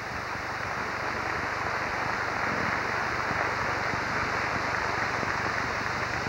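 Audience applauding, swelling at the start and then holding steady, over a faint low hum.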